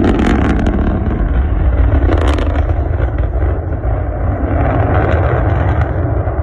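Rocket engine roar: a loud, deep, continuous rumble with crackling spikes, cutting in suddenly.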